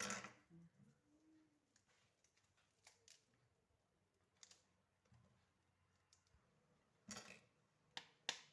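Near silence broken by a few faint clicks and light taps from a pomegranate being pulled apart by hand and its seeds loosened, with a short cluster of them about seven seconds in.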